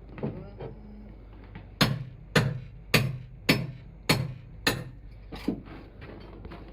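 A run of six sharp, evenly spaced knocks, about two a second, then a weaker one.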